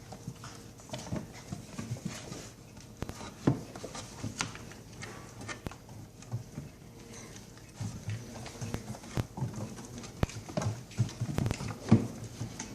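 Puppies scrambling and jumping at a shelf: scattered paw scrabbles, light knocks and low thumps, with a sharper knock near the end.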